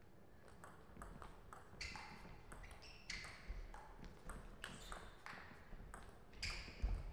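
Table tennis rally: the ball clicking sharply off the paddles and the table, a few times a second. Short sports-shoe squeaks on the court floor come in among the clicks as the players move.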